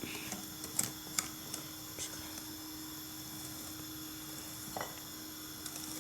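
A utensil clicking against a mixing bowl a few times while batter is mixed, over a steady low hum.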